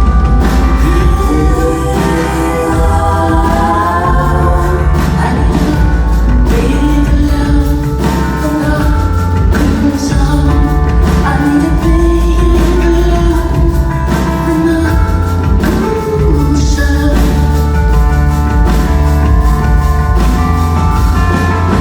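A song in which a woman sings over a band with a strong, steady bass line.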